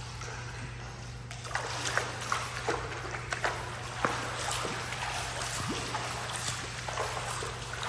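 Water splashing in an indoor pool: irregular sharp slaps and splashes start about a second in and keep coming, over a steady low hum.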